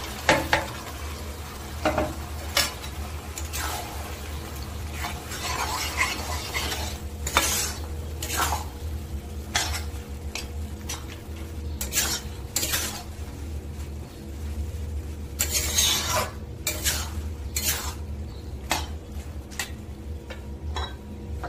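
Flat spatula stirring and scraping chopped bottle gourd and prawns around a wok of fried spice paste, with irregular scrapes against the pan over a light sizzle. A steady low hum runs underneath.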